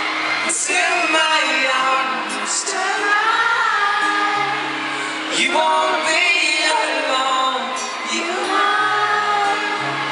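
Live pop band playing a song: singing over acoustic guitar and piano, recorded from among the audience.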